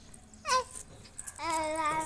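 A young child's voice: a short call falling in pitch about half a second in, then sustained sing-song babbling from about a second and a half on.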